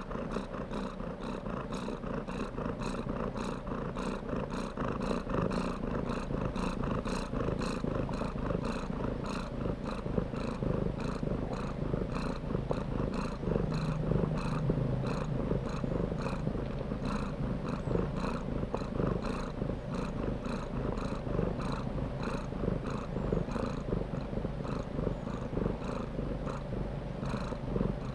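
Domestic cat purring steadily, in an even, pulsing rhythm.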